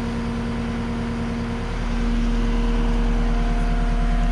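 Caterpillar 259D compact track loader's diesel engine running steadily, getting louder about two seconds in.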